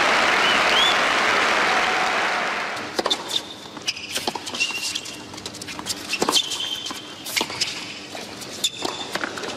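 Stadium crowd applauding, with a few whistles, fading out after about two and a half seconds. Then a hard-court tennis rally follows: sharp racket-on-ball hits at uneven intervals and short high squeaks of tennis shoes on the court.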